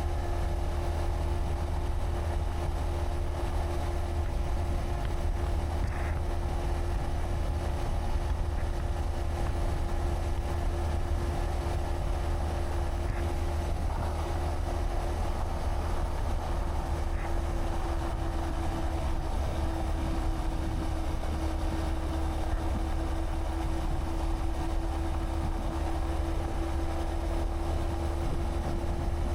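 Honda Monkey 125's single-cylinder engine running at a steady cruise, heard together with a constant low wind rumble on the camera microphone; the engine note dips slightly about halfway through.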